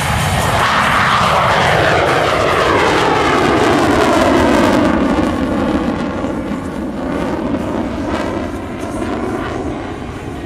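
A CF-18 Hornet's twin afterburning turbofans roar as the jet climbs away just after takeoff with its gear down. A falling whine sweeps down through the roar, loudest in the first half and fading as it draws away.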